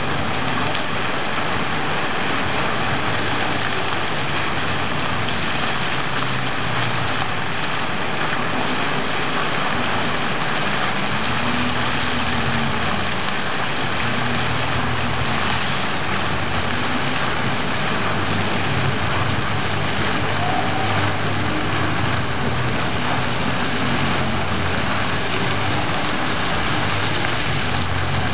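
Water jets of a plaza fountain shooting up and splashing back down onto the wet paving: a steady, even splashing with no break.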